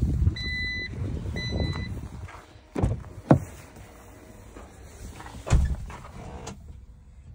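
Geely Atlas Pro power tailgate being closed: two short electronic warning beeps over a low rumble, then heavy thumps around three seconds in as it shuts. Another door is then opened, with a further thump and click near the end.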